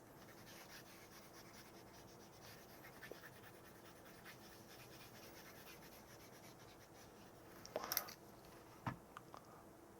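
Near silence: faint room tone, with a few small clicks about eight seconds in and a single sharper click about a second later.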